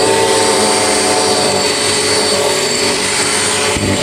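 Electric drill running steadily under load, boring into sheet-metal spot welds without going all the way through. It cuts off at the very end.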